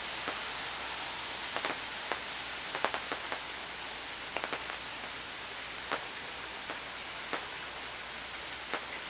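Rain falling on a tent canopy: a steady hiss, broken by irregular sharp taps of single heavier drops striking the fabric.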